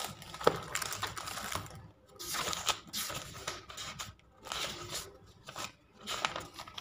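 Pages of a paperback textbook being turned and leafed through: paper rustling in several short bursts with brief pauses between.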